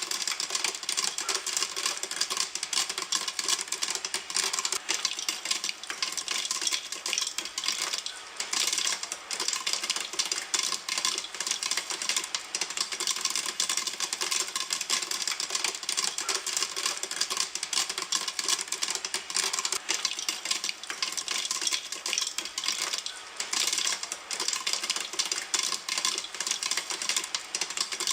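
Popcorn kernels popping in a pan, a dense, continuous crackle of rapid overlapping pops with no pauses.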